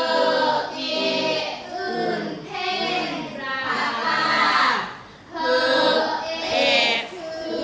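Children's voices chanting phonics sounds and spelled words aloud together in a sing-song way, in phrases about a second long, with a brief pause about five seconds in.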